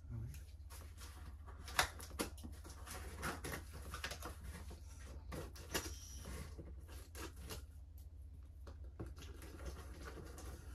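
Scissors blade scoring and slitting the packing tape on a cardboard shipping box: irregular scratching and small clicks, over a low steady hum.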